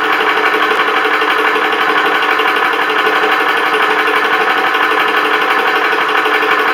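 Vevor 4500 high-pressure PCP air compressor running steadily, a loud, even mechanical hum, while it pumps air into an air rifle's reservoir about halfway to its 3,000 PSI fill.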